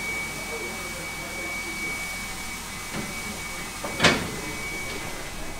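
Stanier 8F 2-8-0 steam locomotive No. 48305 standing with steam hissing steadily, over a faint high whine that fades out near the end. A single sharp knock about four seconds in is the loudest sound.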